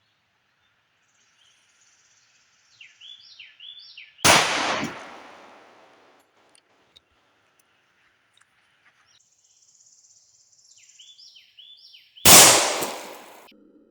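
Two pistol shots from a Tisas M1911 .45 ACP, about eight seconds apart, each a sharp report that rings off over a second or so.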